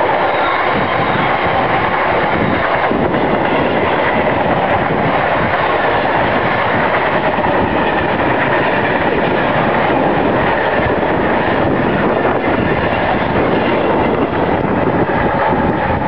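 A long rake of freight tank wagons running past close at speed: a loud, steady rumble and clatter of wheels on the rails.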